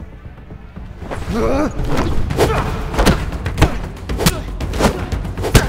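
Fight-scene punch and kick impacts, an irregular run of about eight or nine sharp hits starting about a second in, over a dramatic film score.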